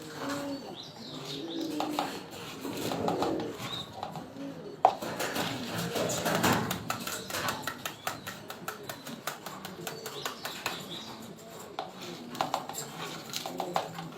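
Pigeons cooing in low, repeated phrases, with a sharp knock about five seconds in and a rapid run of fluttering clicks after it.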